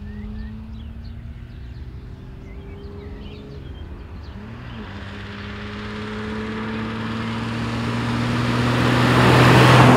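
1962 Maserati 3500 GT's 3.5-litre twin-cam straight-six running as the car approaches and passes close by, the engine note climbing slowly and growing steadily louder to a peak near the end. The note breaks briefly about four seconds in. Birds chirp faintly in the first few seconds.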